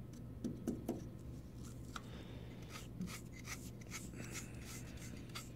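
Faint rubbing and scattered light ticks as a glue-coated 3D-printed figure's toe is pressed into a pile of baking soda on aluminium foil and lifted out, over a low steady hum.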